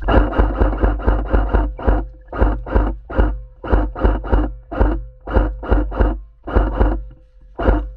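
Background music with a driving rhythm of sharp strokes, about three or four a second, over a steady bass.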